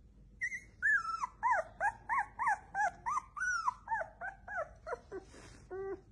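A puppy whimpering in a rapid series of short, high-pitched squeaky cries, about three a second. Near the end they drop to a few lower-pitched yelps.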